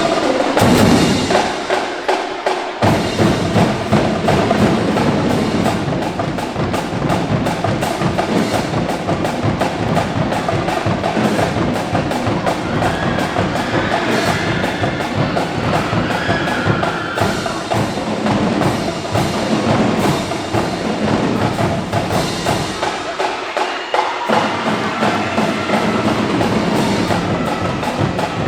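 Marching drumline playing a fast, loud cadence of snares, tenor drums and bass drums with sharp stick clicks. The bass drums drop out briefly near the start and again about three quarters of the way through.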